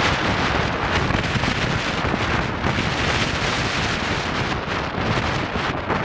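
Windstorm wind blowing across the camera's microphone: a loud, continuous rush of noise that swells and eases a little from moment to moment.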